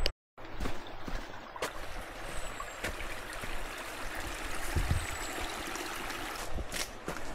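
River water flowing past the bank, a steady rushing hiss, with a few footsteps and light knocks on a dirt path in the second half.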